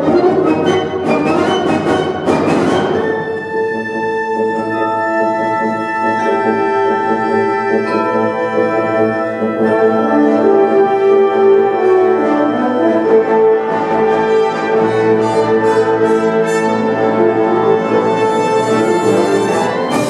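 Concert wind ensemble playing live: a loud full-band passage with sharp accents for the first few seconds, then long sustained chords from the woodwinds and brass with slowly moving lines, and the accents return near the end.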